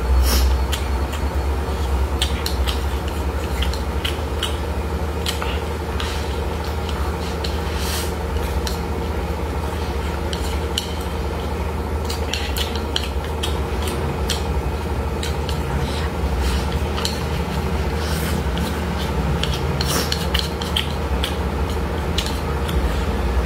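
Eating with wooden chopsticks from a bowl: many short clicks and scrapes of the chopsticks against the bowl, mixed with chewing, over a steady low hum.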